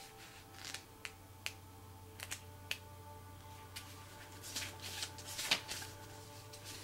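Tarot cards being handled: a run of sharp single card clicks and snaps, then a short flurry of cards rustling and snapping against each other toward the end, the loudest snap in the middle of it.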